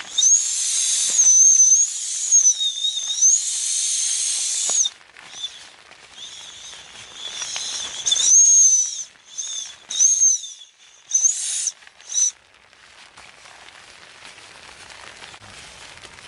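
Steam whistling and hissing out of burning firewood in a wood stove: a high, wavering whistle over a hiss. It is steady for the first five seconds, then comes in short spells and dies down to a faint hiss after about twelve seconds.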